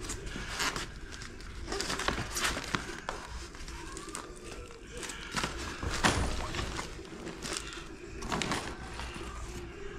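Scattered knocks, scrapes and clicks of hands-on building work, with one louder thud about six seconds in.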